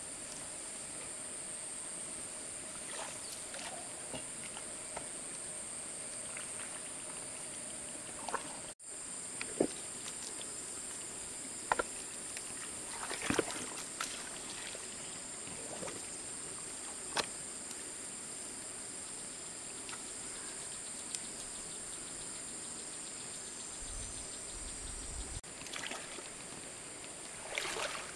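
Muddy water sloshing and splashing in a shallow pond as hands work in it, in short separate splashes with a small cluster near the end. A steady high-pitched drone runs underneath.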